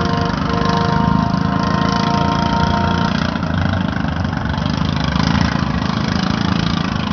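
Stock-class racing lawn mower engines running steadily, with a steady whine over them that stops about three seconds in.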